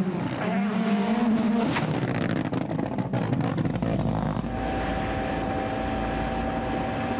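Rally car engine revving up and accelerating hard, followed by a couple of seconds of rapid crackling and rattling. From about four and a half seconds in, a steady engine note is held.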